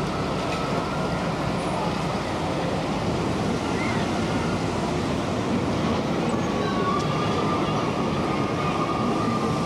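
Steady outdoor ambient noise and rumble heard from a moving Skyway gondola high over the park, with a faint high whine coming in over the last few seconds.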